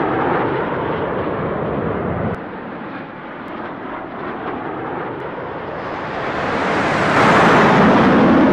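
Airplane flying past: a steady engine rush that dips slightly about two seconds in, then swells to its loudest in a whoosh near the end.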